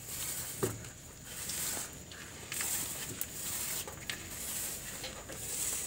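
Paint roller on a long pole being worked over a rough cement wall: repeated rasping swishes, one with each stroke, about one a second.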